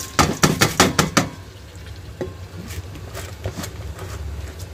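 Plastic bowl knocked about seven times in quick succession to shake out the last raw rice and lentils, followed by a few faint scattered clicks as the remaining grains are brushed into the pot.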